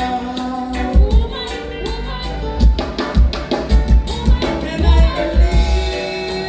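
Live band music with a drum kit, strong kick-drum hits and a wavering melodic lead line over the band.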